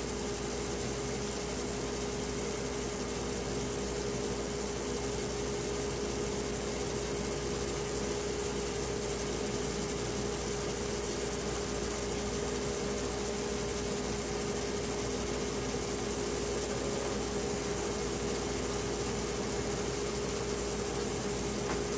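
Steady machine hum: an unchanging mid-pitched tone over even hiss, with no change in speed or load.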